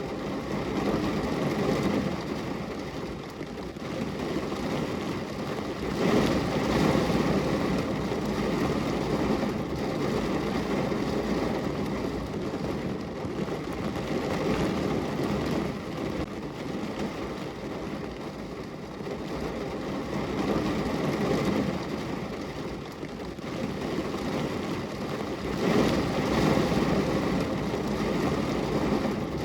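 Steady rain, a dense hiss that swells and eases every few seconds.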